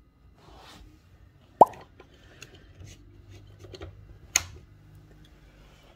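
A single plop, a quick upward-sliding 'bloop', about a second and a half in, followed by a sharp click a few seconds later, over faint rustling and scattered ticks.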